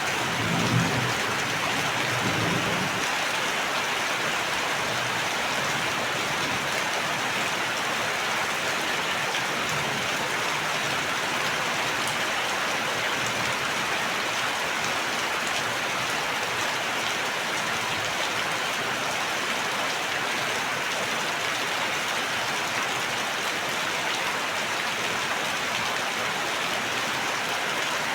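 Steady heavy rain pattering on a surface, an even hiss with no pauses. A brief low rumble sounds in the first few seconds.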